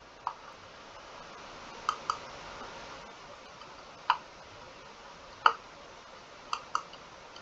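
Computer mouse clicking: seven sharp clicks at irregular spacing, two of them in quick pairs like double-clicks, over a faint steady hiss.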